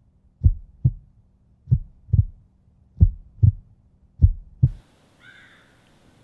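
Heartbeat sound effect: four double low thumps, lub-dub, about one and a quarter seconds apart, cutting off abruptly near the end.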